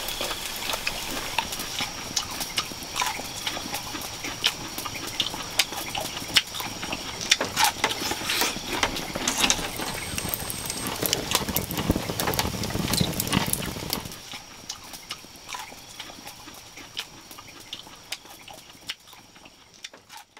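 Wood fire crackling and popping on an open hearth, irregular sharp cracks over a soft hiss, with a steady high-pitched tone underneath. It drops in level about two-thirds of the way through and fades toward the end.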